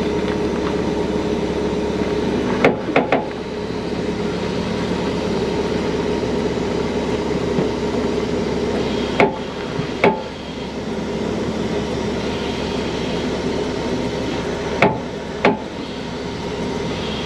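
Heavy-duty diesel engine running steadily while a wrecker lifts a stranded semi-trailer. Sharp clanks come in small groups: three about three seconds in, two around nine to ten seconds, and two near the end.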